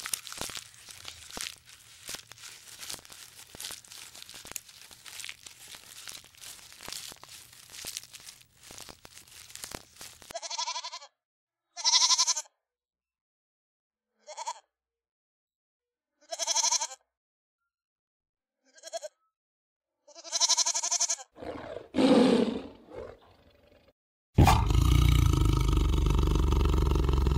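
A series of animal sounds. First comes about ten seconds of faint, irregular crackling clicks. Then six short pitched calls sound about two seconds apart, and about three seconds before the end a loud, steady, rough roar starts, typical of a big cat such as a lion.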